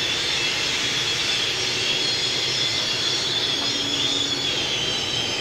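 Steam locomotive standing with steam hissing steadily, a thin high whine above it slowly dropping in pitch.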